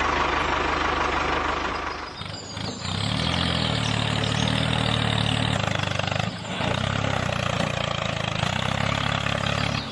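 A small engine or motor running steadily, with brief dips about two and six seconds in.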